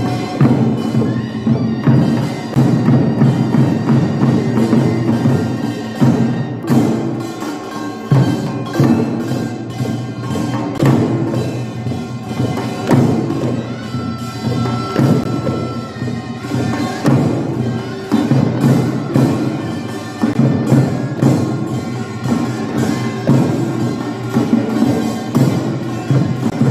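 Korean pungmul folk percussion: barrel drums (buk) and small hand drums (sogo) beaten in a steady, driving rhythm of sharp strokes, over held pitched tones.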